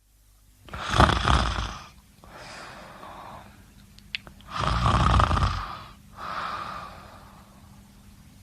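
A person snoring: two loud rasping snores about four seconds apart, each followed by a softer breathy sound. A short click comes just before the second snore.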